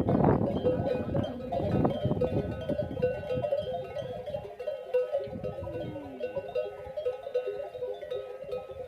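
Many camel neck bells clanking and tinkling together as the herd moves, a jumble of overlapping short ringing notes at several pitches. It is loudest in the first couple of seconds and eases off after that, with one short low falling sound about halfway through.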